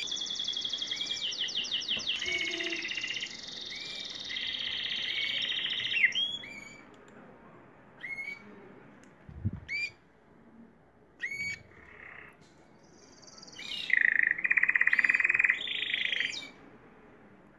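Canaries singing: a long, rapid trill of repeated high notes for about the first six seconds, then short rising chirps about once a second, and a second trill near the end.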